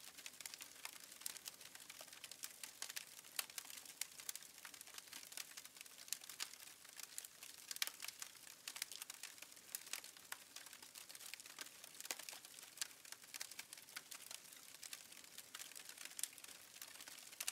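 Faint fire crackling: irregular sharp pops and crackles over a soft steady hiss.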